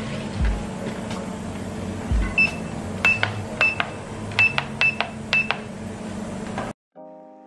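Short electronic beeps, about seven in three seconds, from the touch buttons of an O'melon Omega Light LED therapy lamp's control panel as it is set, with a couple of low bumps before them as the lamp head is moved into place. The room sound cuts off near the end.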